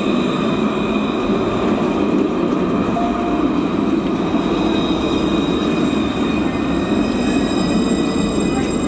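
Luas light-rail tram close by, running with a steady rumble of wheels on rails and thin, steady high whining tones above it.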